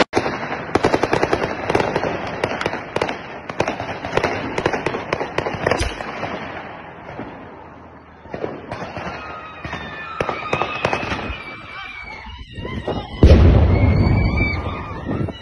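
Rapid crackle of distant shots, many a second, thinning out after about six seconds into scattered pops. Near the end comes a loud rushing rumble of handling noise as the phone is swung about.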